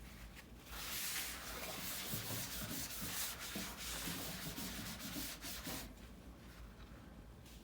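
Rubbing and scraping, a hissy friction noise with many small scuffs, like parts or panels being handled and slid against each other. It starts just under a second in and stops about six seconds in.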